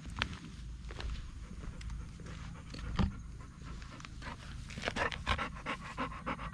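Golden retriever panting rapidly with her mouth open, about four breaths a second, starting a few seconds in. A single sharp knock comes just before the panting.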